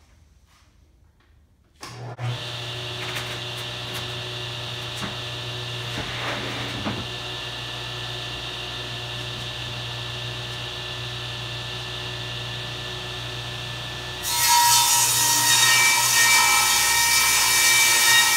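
Craftsman table saw switched on about two seconds in: its motor spins up and runs steadily with a low hum while the blade turns free. Near the end the blade enters a sheet of plywood and the sound jumps much louder into a steady rip cut.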